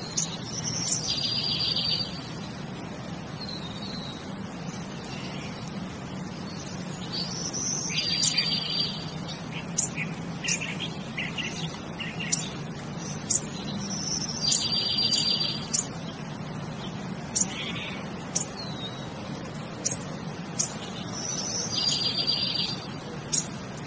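Bird chirps and calls, a rising whistle followed by a trill about a second long, repeating in the same pattern about every six and a half seconds like a loop, with short clicks between, over a steady low hum.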